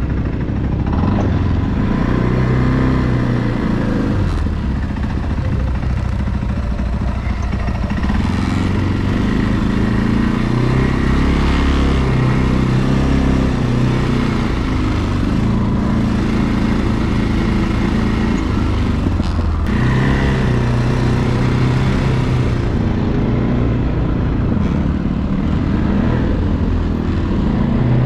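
ATV engine running continuously, its pitch rising and falling with the throttle.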